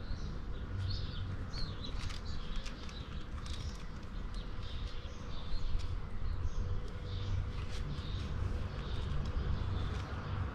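Small birds chirping on and off in the background, over a steady low rumble.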